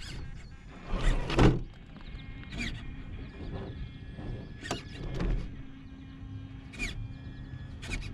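Traxxas TRX-4 RC crawler's electric motor and geared drivetrain whirring in several short bursts, with knocks and scrapes as it crawls over rough ground; the loudest burst comes about a second in.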